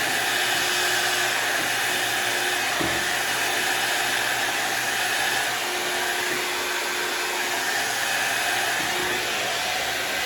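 Hot air brush blowing steadily, with a faint motor hum, then switched off suddenly at the end.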